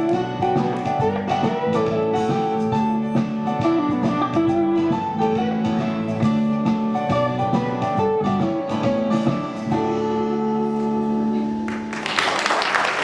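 Instrumental music playing out the end of a song with sustained notes, then audience applause breaking out about a second before the end.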